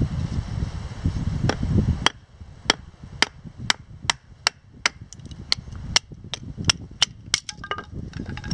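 Wooden baton striking the spine of a knife driven into a piece of cedar, splitting off a flat plank: a steady run of sharp knocks, about two a second, beginning around two seconds in after a low rumble.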